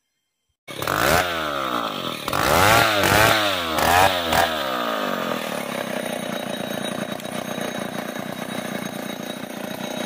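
Chainsaw comes in abruptly about a second in and revs up and down several times, then runs steadily as it cuts lengthwise along a merbau log.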